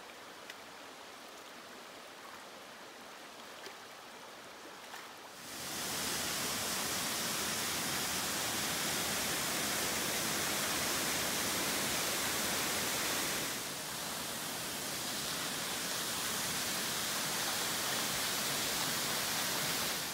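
A creek running over rocks. From about five seconds in, the much louder, steady rushing roar of a waterfall takes over, easing a little about thirteen seconds in and then going on.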